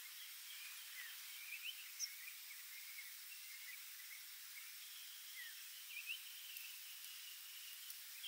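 Outdoor forest ambience: scattered short bird chirps and trills over a steady hiss.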